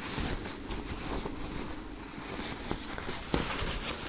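A large polyester flag being unfolded by hand, the fabric rustling and flapping, louder for a moment near the end.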